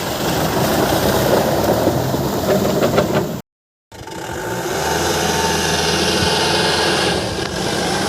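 Mahindra Bolero's diesel engine running under load while driving through a river crossing, with a sudden cut to silence for about half a second around three and a half seconds in.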